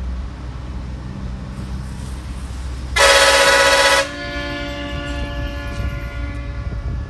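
A bus horn gives one loud blast of about a second, about three seconds in. Its tone hangs on more faintly for a couple of seconds after. A low engine rumble sits underneath.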